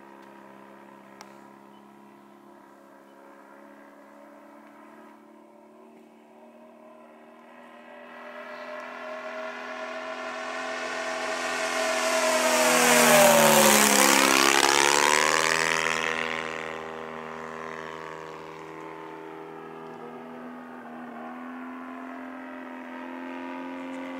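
Giant-scale RC Cessna 182 model's 85 cc four-stroke engine and propeller droning as the plane flies past. It grows steadily louder to a peak about 13 seconds in, its pitch drops sharply as it passes, then it fades away.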